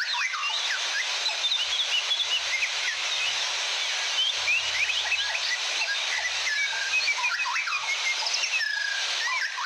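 Many songbirds chirping and whistling, several at once in quick overlapping phrases, over the steady rush of a waterfall.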